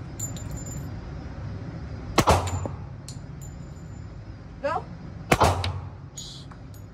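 Two pistol shots about three seconds apart, each a sharp crack with reverberation from the indoor range.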